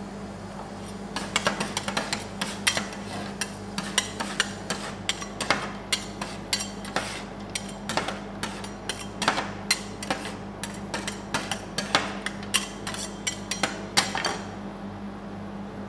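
Two metal spatulas chopping and tapping on the steel cold plate of an ice cream roll machine, crushing pieces of chocolate fruit-and-nut bar into poured Pepsi: quick, irregular sharp clicks and scrapes, several a second, starting about a second in and stopping near the end. A steady low machine hum runs underneath.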